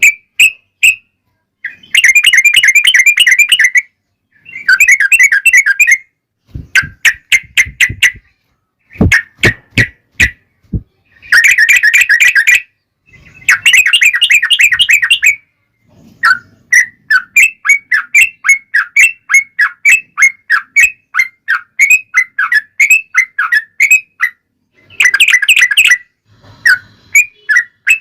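Yellow-vented bulbuls (trucuk) singing in loud bursts of rapid, bubbly chatter, then a long run of short repeated notes at about three a second. A run of sharp clicks sounds between the bursts, about seven to ten seconds in.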